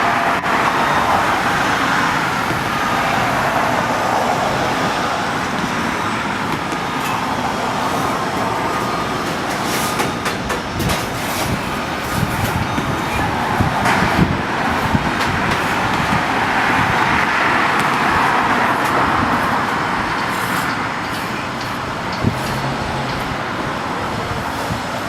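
Steady hum of motor vehicles and machinery, swelling and easing twice, with a few sharp knocks in the middle.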